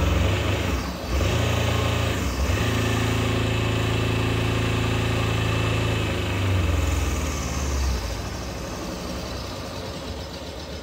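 Battery-powered electric motor from a wave runner's gas-to-electric conversion, running and spinning the craft's driveshaft with a steady low hum. The hum dips briefly about one and two seconds in, then about eight seconds in it drops quieter as the motor winds down.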